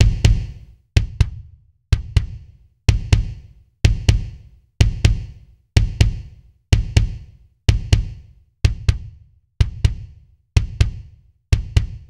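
Kick drum alone playing pairs of quick hits, the two hits about a quarter second apart and the pairs coming about once a second. It is the original recorded kick blended with a sampled kick that REAPER's Audio to MIDI Drum Trigger fires from it, the two hitting together as one layered kick.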